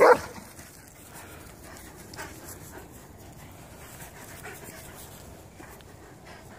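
A large shaggy dog panting close to the microphone after play, following a short loud burst of sound right at the start.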